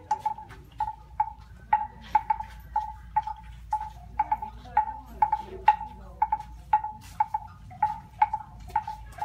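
A bell clanking over and over at one pitch, about two to three strikes a second in an uneven rhythm.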